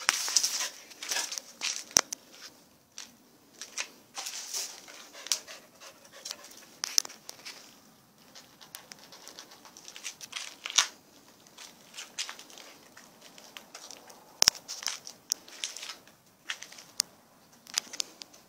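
Irregular crackling and scraping with sharp clicks: a plastic drink bottle and a steel food bowl being nosed and pushed about on concrete paving, with a couple of harder knocks about two seconds in and again near fifteen seconds.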